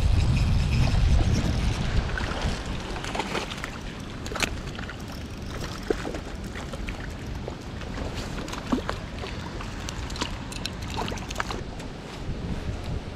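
Wind buffeting the microphone, easing after about two seconds into a steady hiss with scattered light ticks and taps.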